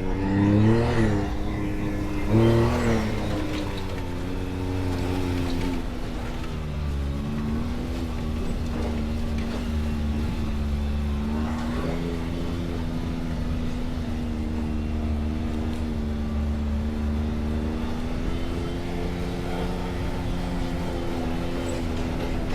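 Off-road vehicle's engine revving in two short blips, then running steadily at low revs with small rises and falls in pitch.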